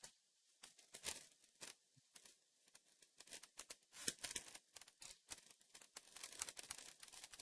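A LEGO collectible minifigure pack being torn open and its packaging crinkled: a run of sharp crackles and rustles that gets busier about four seconds in.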